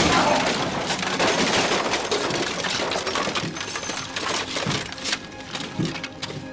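A sudden loud crash, followed by a dense jangling, rattling clatter that fades away over several seconds, with a few separate knocks near the end.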